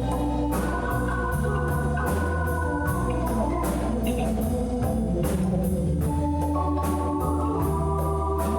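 Live band playing: held organ-toned keyboard chords that change every second or two, over drums keeping a steady beat.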